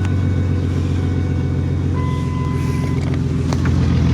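Ford Ranger 3.0 V6 engine running at a steady idle just after starting, now that the fuel-cutoff safety switch is bypassed and fuel reaches the injectors. A brief steady beep sounds about two seconds in.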